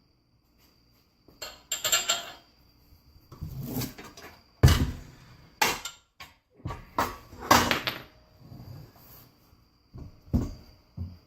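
Metal parts and hardware clanking and rattling as they are handled: a run of irregular clinks and knocks, the loudest about a third of the way in.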